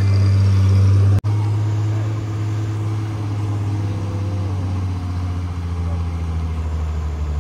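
Heavy diesel engine running steadily with a deep, even hum. It cuts off for an instant about a second in, then a diesel engine runs on, its pitch dropping slightly around the middle.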